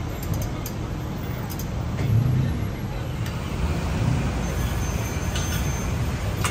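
Steady city street traffic rumble, with a louder low swell about two seconds in and a few faint light clicks.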